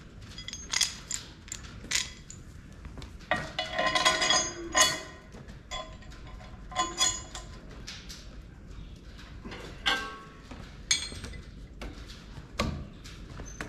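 Ratchet wrench clanking and clinking on the steel bolt and cast front weight of a John Deere 4055 tractor as the weight is tightened down: irregular metallic knocks, some ringing, busiest about three to five seconds in.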